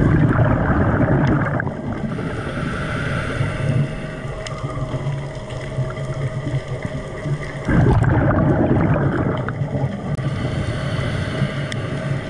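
Underwater noise picked up by a diver's camera on a night dive: a sudden rush of water noise at the start and again about eight seconds in, each easing off over a couple of seconds, over a steady low hum.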